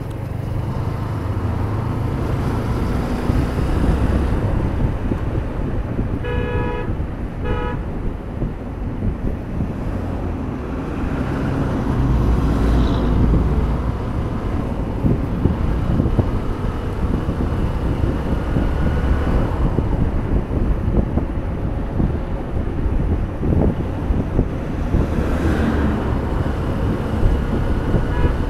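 Hero Hunk motorcycle's 150 cc single-cylinder engine running steadily under way, with road rumble. A vehicle horn sounds twice in quick succession about six or seven seconds in, the first blast longer than the second.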